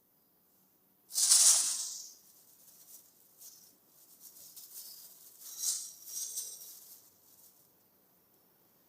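Plastic crinkling and rustling in irregular bursts as a kitten plays with it, loudest once about a second in, then a run of softer crinkles that dies away near the end.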